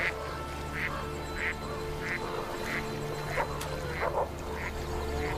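Canada geese calling: a steady run of short calls about every two-thirds of a second, with a couple of lower calls around three and four seconds in, over background music with long held notes.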